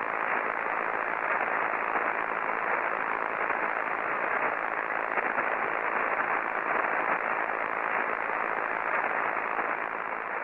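Steady static hiss of an untuned analog television, just beginning to fade at the very end.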